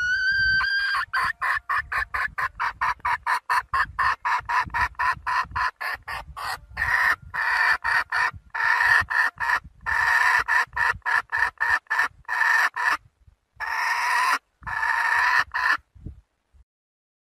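Young red junglefowl hen calling for a rooster: a drawn-out rising note, then a fast run of clucks, about five a second, which turns into longer broken calls that stop about a second before the end.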